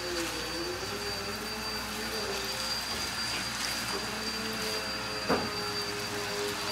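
Chicken pieces sizzling in a frying pan with a steady hiss while a spatula stirs them, with one sharp knock of the spatula against the pan about five seconds in.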